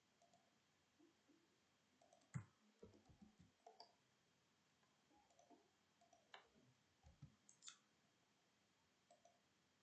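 Faint, scattered clicks of a computer mouse and keyboard, a few at a time with short pauses between.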